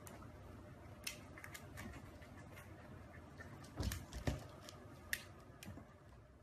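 French bulldog puppy scrabbling in a plastic basin and clambering out onto a tiled floor: faint scattered clicks and scuffs of claws, with a couple of dull knocks about four seconds in and a sharp click a second later.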